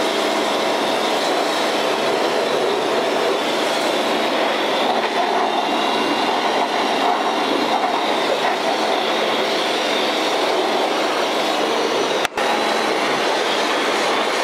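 Pressure washer running: a steady, loud hiss of the lance's water jet over the hum of the pump motor, blasting grime off a car's engine bay. It breaks off for an instant near the end.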